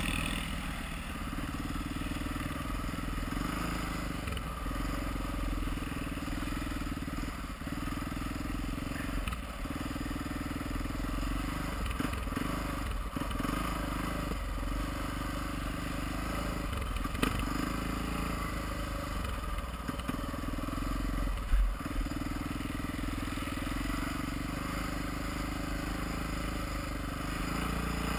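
Honda XR650R's single-cylinder four-stroke engine running under way, the throttle briefly rolled off every second or two, with one sharp thump a little past two-thirds in.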